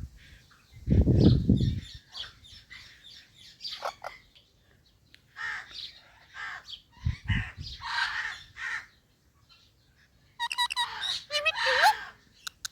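Indian ringneck parrots calling in short chirps and squawks, some gliding in pitch, thickest in a burst near the end. A low thump about a second in and a shorter one around seven seconds.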